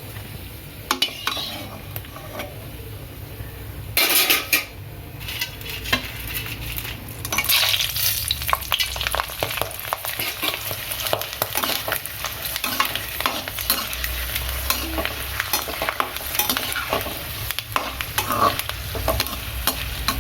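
Sun-dried vegetable vathal deep-frying in hot oil in a kadai, sizzling and crackling as they are stirred. There is a loud flare of sizzling about four seconds in, and the crackling gets busier a few seconds later.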